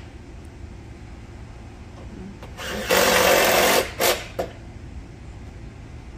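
A cordless drill driving a screw to fasten a newly hung gutter: one whirring run of about a second, about three seconds in, then two brief blips. A low steady rumble runs underneath.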